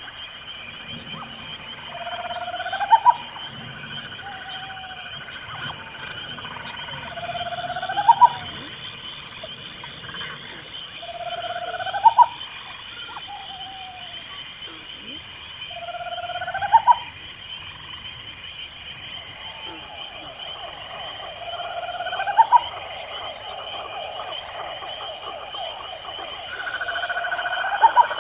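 Night chorus of crickets and other insects: a steady high-pitched trill, with short high chirps about once a second. Over it, a short rising call repeats six times, about every five seconds.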